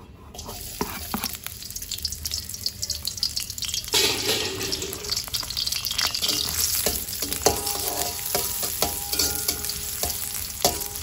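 Chopped shallots sizzling in hot oil in a metal wok, the sizzle getting louder about four seconds in. Through the second half a spatula scrapes and clicks against the wok as the shallots are stirred.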